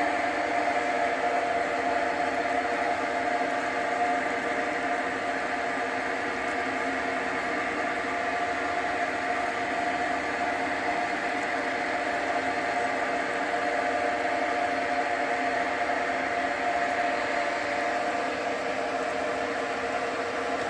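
JFMT metal lathe running steadily under power, its spindle and gear train giving a steady whirring whine made of several tones. Near the end the tones fall in pitch.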